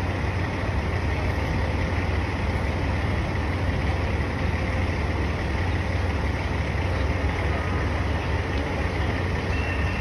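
Liebherr mobile crane's diesel engine running steadily during the lift, a deep even drone with street noise around it.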